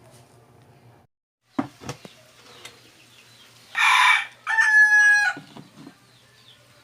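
A rooster crowing once, about four seconds in: a harsh, rasping start followed by a held, steady note. A couple of short knocks come before it.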